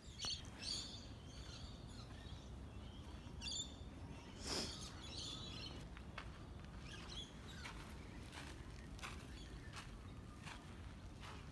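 Faint outdoor ambience: birds chirping on and off, over a steady low rumble, with a few soft clicks.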